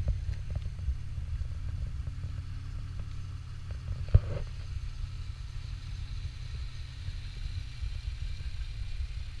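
A 2001 Chevy Malibu's V6 engine idling steadily with a low rumble. There is a single knock about four seconds in.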